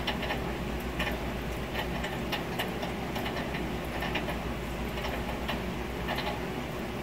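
A person chewing food with soft, irregular mouth clicks over a steady low hum.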